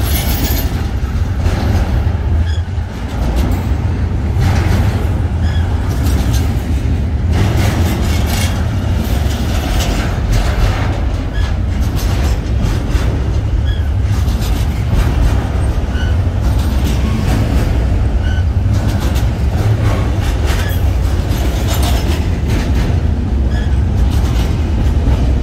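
Norfolk Southern double-stack intermodal freight train's well cars rolling past close by: a steady heavy rumble of steel wheels on rail, with irregular clacks as the wheels cross rail joints.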